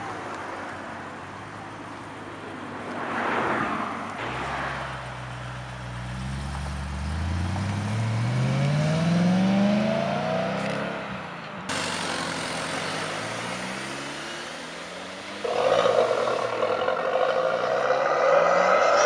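Modified cars driving past and accelerating away, engine notes rising in pitch as they rev through the gears. A much louder car comes in suddenly near the end, its engine climbing again.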